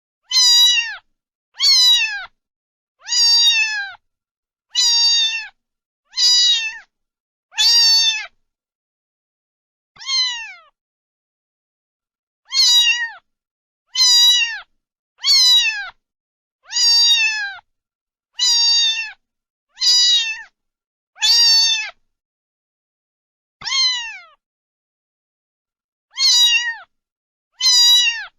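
A cat meowing over and over: about seventeen short, high meows, each falling in pitch, one every second or so, with a couple of longer pauses.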